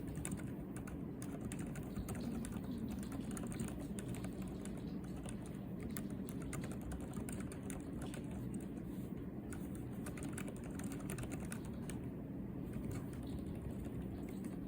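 Typing on a Hansung GK707SE mechanical keyboard with silent brown (Jam, 40 g) switches: fast, continuous keystrokes with soft, damped clicks.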